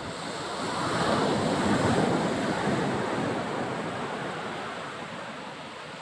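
Surf washing onto a beach: a wave swells in about a second in and slowly recedes, with wind noise on the microphone.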